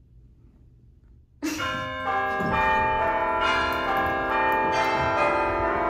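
Quiet room tone at first. About a second and a half in, background music starts abruptly: bell-like held notes that change every half second or so.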